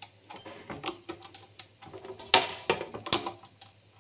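Hand-held metal petit-four cookie press clicking as its lever is squeezed, ratcheting the plunger down to push dough onto an aluminium baking tray. The clicks come in an uneven scatter, with the two sharpest a little past halfway.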